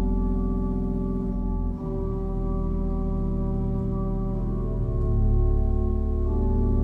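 1913 Heinrich Schiffner pipe organ playing held chords over a deep sustained bass note, the harmony changing about every two seconds.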